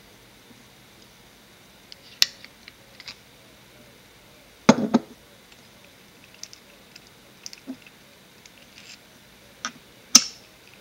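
Handling clicks and knocks of an airsoft grenade's hard plastic and metal parts as its base is taken off and turned over in the hands: scattered small ticks, a louder cluster of knocks about five seconds in, and a sharp click near the end.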